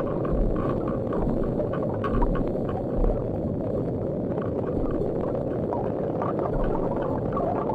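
Underwater sound picked up by a submerged camera: a dense, low rushing of water with many small irregular clicks over it.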